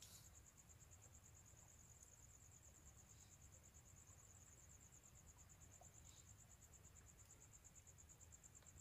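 Crickets trilling faintly and steadily, one continuous high-pitched pulsing trill, with a soft brief rustle right at the start.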